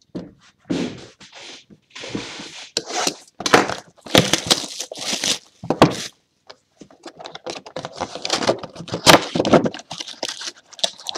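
Plastic shrink-wrap being torn off a sealed trading-card box by its tear strip and crinkled, in irregular crackling bursts, with a few light knocks and scrapes from the cardboard box being handled.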